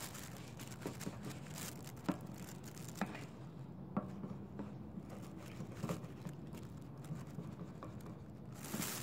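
Hair dye being stirred in a plastic bowl with a tint brush: scattered light clicks and taps of the brush against the bowl over faint scraping, about one every second.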